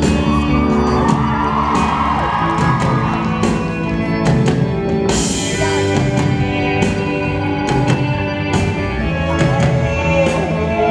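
Live rock band playing an instrumental passage between sung lines, with regular drum hits, recorded from within the audience; audience voices whoop and cheer over the band in the first few seconds.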